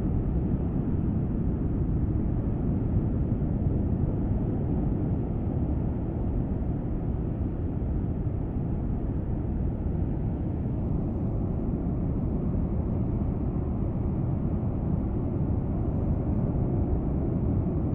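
Steady, deep rumble of Kilauea's lava fountain erupting, an even rushing noise with no breaks or separate bursts.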